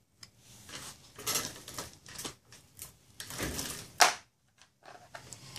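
Hand-tool handling on the engine's aluminium extension housing: a hex key working the housing's button-head cap screws, making a series of scrapes and clinks, with one sharp metallic click about four seconds in.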